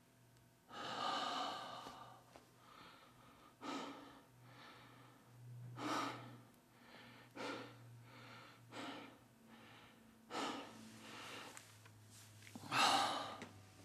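An elderly man crying: a run of gasping, sobbing breaths every second or two, the strongest about a second in and again near the end.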